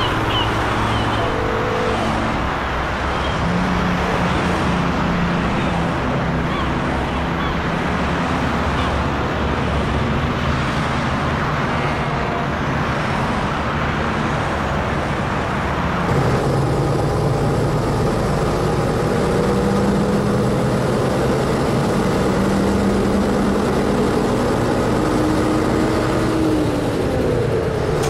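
Recorded road-traffic ambience: a steady mix of car and truck engines with passing traffic. About halfway through the sound shifts to a heavier, lower engine drone.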